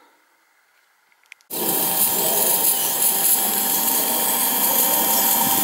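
Near silence with a couple of faint clicks, then about a second and a half in a loud, steady, hissing mechanical whir with a constant whine starts abruptly and holds.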